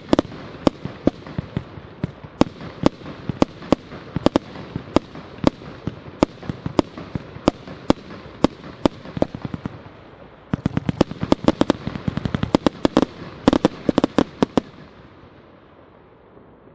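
Tarantula firework cake (battery) firing: sharp bangs about two a second over a steady hiss. About ten seconds in it turns louder and denser in a closing volley. The shots stop near the end, leaving a fading hiss.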